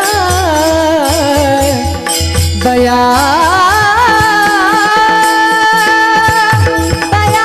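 Marathi kirtan singing: a solo voice sings an ornamented devotional melody, gliding upward about three seconds in to a long held note, over a steady drone and low drum beats.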